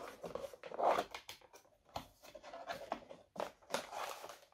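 Paper and cardboard packaging rustling and scraping as hands work through the inserts of a camera box, in irregular bursts with the loudest about a second in.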